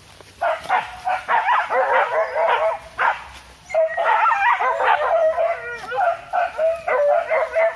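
Several hunting dogs on leashes yelping and whining excitedly in a dense chorus, with a short lull midway, eager to be let loose on a fresh wild boar trail.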